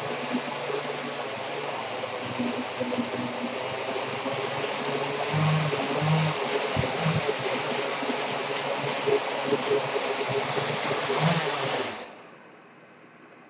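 Four brushless motors and propellers of a homemade quadcopter running, with a steady high whine over a hum that wavers as the motors speed up and slow down. The motors cut off about twelve seconds in.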